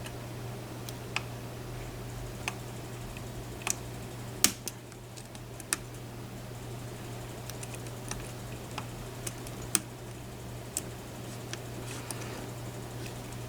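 Small, sharp, irregular clicks of a lock pick and tension wrench working the pins of a pin tumbler lock, the loudest about four and a half and nearly ten seconds in, over a steady low hum.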